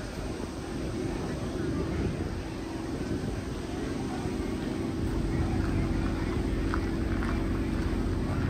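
A steady motor drone with a constant hum over outdoor background noise; its low rumble grows stronger about five seconds in.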